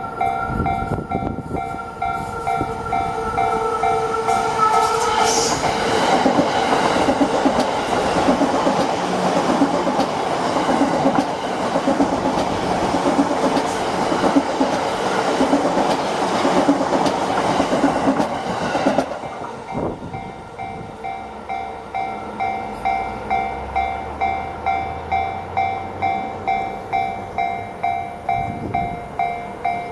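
A Japanese level-crossing warning bell rings in a steady ding-ding about twice a second. From about 5 s to 19 s a JR East E235 series electric train runs past, with loud wheel-and-rail noise and a regular rhythmic clatter that drowns the bell. The train noise stops abruptly and the crossing bell keeps ringing on its own.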